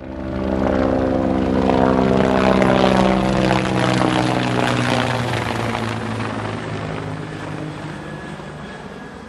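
Helicopter flying past: a steady engine-and-rotor sound that comes in suddenly, is loudest in the first few seconds, then fades away through the second half.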